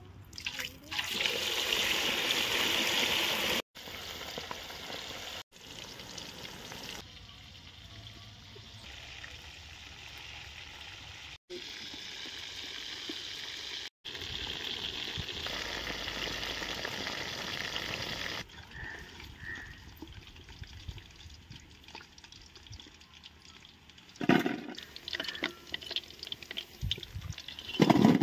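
Marinated chicken pieces deep-frying in hot oil in a kadai: a steady sizzle that stops and restarts abruptly several times at different loudness, with a few knocks near the end.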